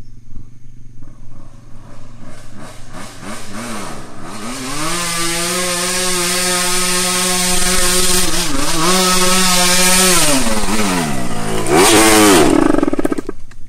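Motorcycle engine revving hard under load: the pitch climbs about four seconds in and is held high for several seconds with a brief dip. It drops back, then gives one more loud surge near the end.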